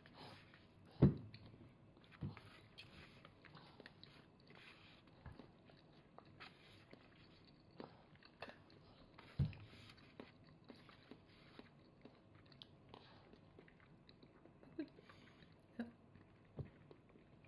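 A toddler eating and drinking at the table: quiet chewing and small mouth clicks, with a couple of soft thumps, the loudest about a second in and another about nine seconds in.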